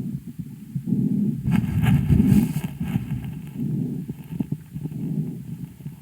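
A calf's breath sounds over the left chest, picked up through a stethoscope microphone, on the fourth day of a respiratory illness. A low sound swells and fades with each breath. About a second and a half in, a louder, scratchier stretch lasts about a second.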